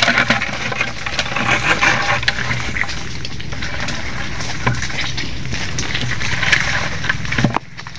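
Leaves and twigs rustling and crackling as people push through dense undergrowth on muddy ground, with many small snaps and brushing sounds and a steady low hum underneath.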